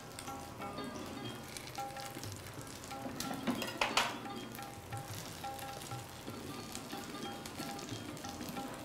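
Butter sizzling and crackling under buns toasting on a hot cast-iron dosa tawa, with a brief louder burst of sizzle about four seconds in.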